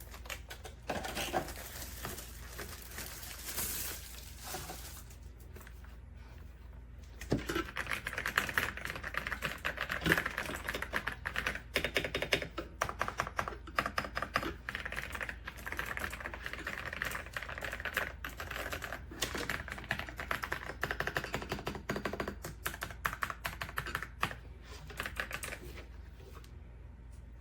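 Typing on the AULA F108 Pro mechanical keyboard: a few scattered clicks and handling sounds, then from about a quarter of the way in a long run of rapid, continuous keystrokes that stops shortly before the end.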